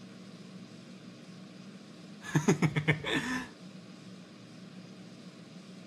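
A short burst of laughter: about seven quick ha-ha pulses starting a little over two seconds in, ending on a longer falling note, over a steady low hum.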